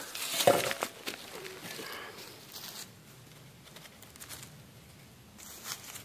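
Dry leaves crunching and soil scraping as a digging tool turns over the forest floor, loudest in the first second, then faint rustling and a few small ticks.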